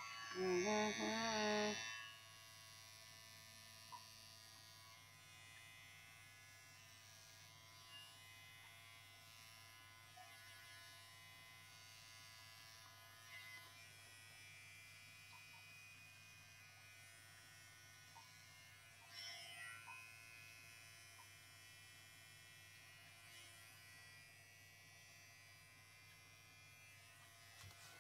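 Electric pet hair clipper buzzing steadily as it cuts through a cat's long fur. A short, louder wavering voice-like sound comes in the first two seconds, with a few faint clicks later.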